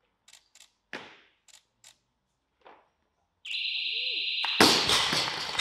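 A few light clicks as a loaded barbell leaves the platform, then a steady electronic beep about a second long, the referees' down signal, cut off by a loud crash as the bumper plates are dropped onto the wooden lifting platform, followed by crowd cheering and clapping.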